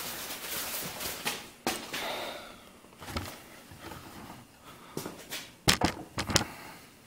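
Scattered clicks and knocks of metal engine parts and tools being handled on a metal workbench, with a quick run of sharp clicks near the end.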